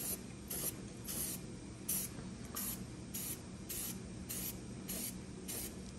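Aerosol spray paint can hissing in short bursts, a little under two a second, as paint is sprayed onto a repaired steel truck frame.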